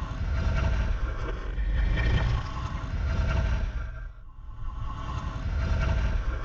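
Ghost-breath sound effect: a slow, deep, breathy swell that fades away about four seconds in, then builds again into the next breath.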